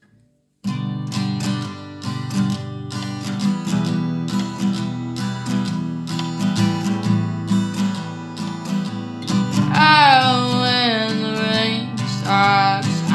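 Acoustic guitar playing a song intro, starting suddenly about half a second in. About ten seconds in, a voice comes in singing a wordless line with sliding pitch, then again near the end.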